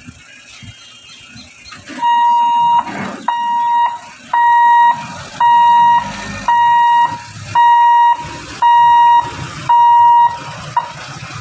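Level-crossing gate warning buzzer beeping: about eight steady, even beeps, roughly one a second, starting about two seconds in, with a short final blip near the end. It warns road users that the barrier is about to be closed.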